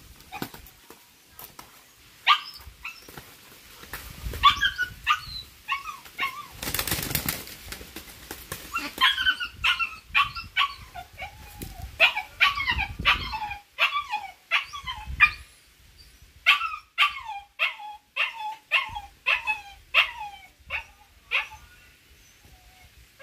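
Short yelping animal cries, each falling in pitch, repeated one to two a second for most of the stretch and stopping near the end. A brief noisy burst of wing-flapping from the fighting roosters comes about seven seconds in.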